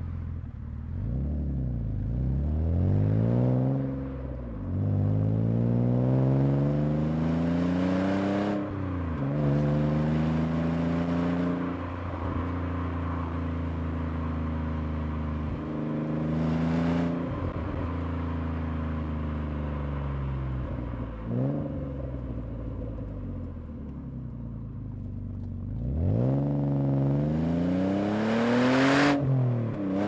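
Alfa Romeo 156's 2.5-litre Busso V6, breathing through a Novitec exhaust, pulling up through the gears. The note climbs and then drops at each upshift, holds fairly steady through the middle, and climbs again near the end.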